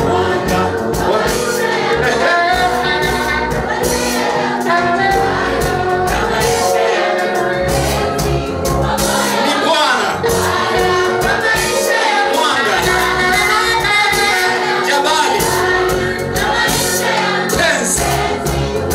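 Choir singing a Swahili gospel praise song in harmony over instrumental backing with a steady beat.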